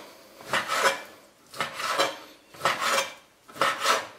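A chef's knife slicing raw pork tenderloin into cubes on a cutting board: four slicing strokes about a second apart, each the blade drawing through the meat down onto the board.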